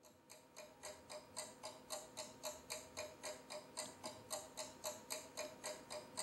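Faint, steady ticking at about four ticks a second, clock-like, fading in over the first two seconds and then holding even.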